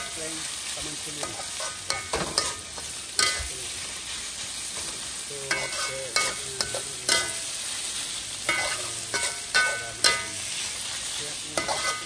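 Sliced bamboo shoots sizzling in a wok while a metal spatula scrapes and clanks against the pan in irregular strokes, some strokes ringing briefly.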